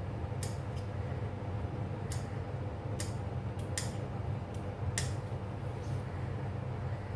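About nine light, sharp kitchen-utensil clicks and taps, scattered irregularly, over a steady low hum.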